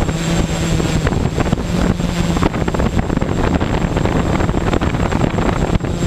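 Quadcopter's electric motors and propellers buzzing, recorded by the GoPro on board, with heavy rough wind noise on the microphone. The motor hum fades in and out under the wind, over a faint high whine.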